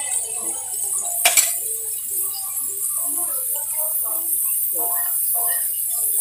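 Metal spatula stirring green beans and ground pork in a stainless steel pan, scraping and clinking against the metal, with a sharp double clink about a second in.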